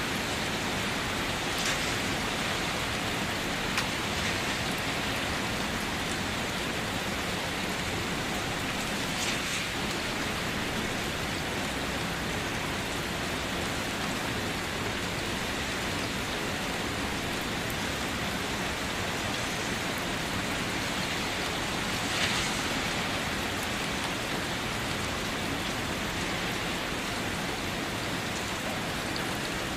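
Steady rain, a continuous even hiss of falling rain, with a few brief louder ticks, the loudest about twenty-two seconds in.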